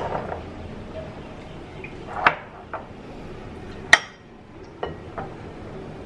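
Spatula stirring and scraping in a glass mixing bowl, with several sharp clinks of glassware; the loudest clink comes about four seconds in.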